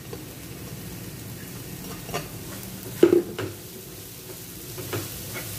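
Chopped spring onion and red bell pepper sizzling in a nonstick frying pan as a plastic spatula stirs them, with a few sharper scrapes and knocks of the spatula on the pan, the loudest about three seconds in.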